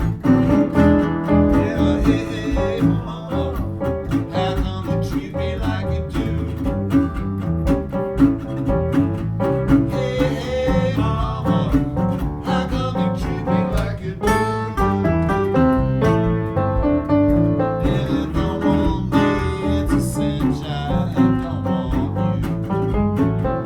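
Acoustic string band playing a country blues, with guitar and bass over a steady run of plucked notes.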